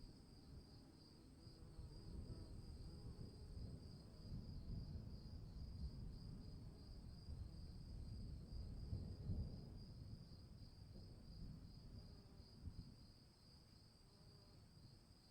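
Crickets chirping in a steady, high, pulsing trill, over a faint low rumble that swells and then fades away near the end.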